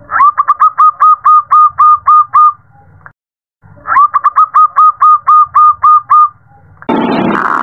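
Zebra dove singing: two bouts of about a dozen short, rapid cooing notes, each bout opening on an upward note and slowing toward its end. Near the end a louder, noisier mix of sound cuts in.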